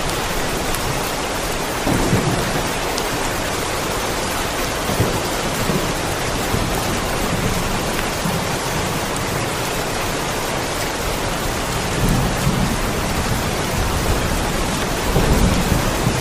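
Steady heavy rain, a dense even hiss, with low rumbles of thunder swelling up several times, the strongest near the end.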